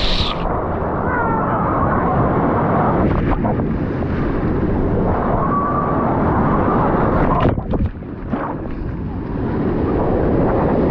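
Wave pool water rushing and breaking as the big-wave cycle rolls through, a loud steady wash of noise, with faint voices of swimmers and wind buffeting the microphone.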